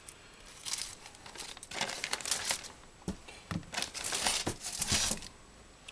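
Crinkling and tearing in several short bursts as masking tape and its plastic wrapping are handled.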